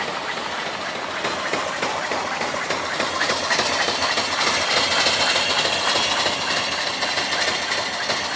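Twin-cylinder steam engine, 3-inch bore and 3-inch stroke, running steadily under steam, with a fast even patter of exhaust beats and valve-gear knocks. A hiss of steam grows louder about three seconds in.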